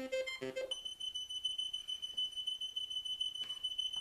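Dekrispator DIY digital synthesizer (STM32F4 board) playing a quick run of short sequenced notes, then switching, under a second in, to a steady high-pitched tone with a faint pulse as its parameters are changed from the MIDI controller's knobs.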